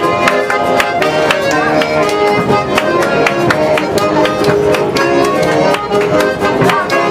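Accordion and acoustic guitars playing a lively folk tune together, with a steady strummed beat.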